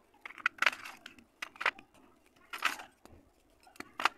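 Dry red clay (multani mitti) chunks being snapped and crumbled by hand in a steel bowl, giving sharp cracks and crunches. They come in four clusters about a second apart.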